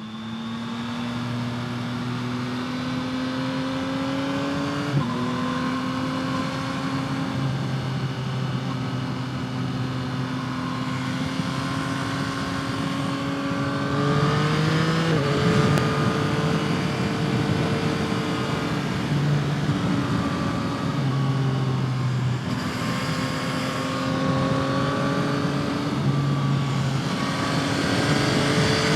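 Yamaha MT-09's 890 cc inline three-cylinder engine running under way through a modified stock exhaust. Its note rises slowly, with abrupt breaks and steps in pitch about five seconds in and again about fifteen seconds in.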